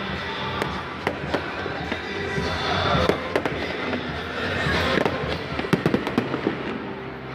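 Aerial fireworks bursting and crackling in many sharp, irregular pops, with a dense run of quick pops about six seconds in. Music plays underneath.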